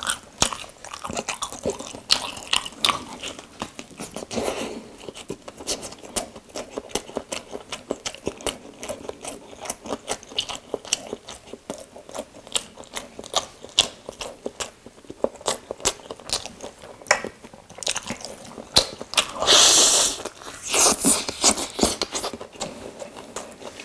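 Close-miked biting and chewing of a Korean street toast with bacon: crisp crunches of the grilled bread and moist chewing, in a steady run of small crackles. A louder, longer crunch comes about twenty seconds in.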